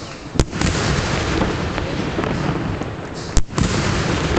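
Fireworks going off: two sharp bangs about three seconds apart over a continuous noisy rumble and crackle.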